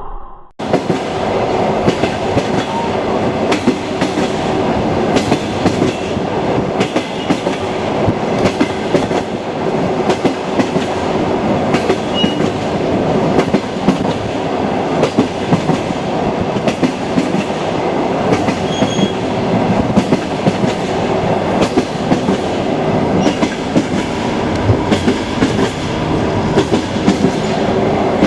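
Train wheels clattering over rail joints as the train runs along, a steady rumble broken by frequent irregular clicks. It starts about half a second in after a brief dropout.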